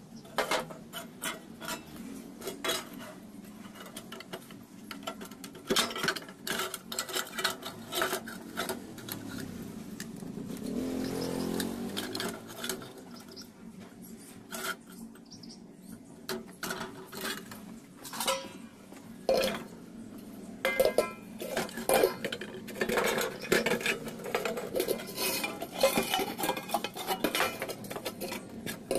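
Irregular metal-on-metal clinks, knocks and scrapes as sheet-metal parts of a used-oil stove burner and a stainless steel pot are handled and set against each other.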